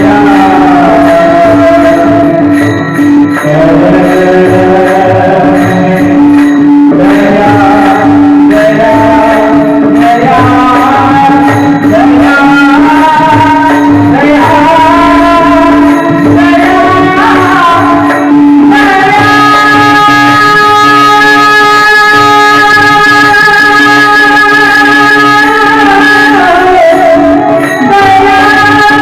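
Marathi devotional abhang singing with accompaniment: a steady drone note held throughout under a gliding melody and a regular drum beat. For several seconds past the middle, high notes are held steady.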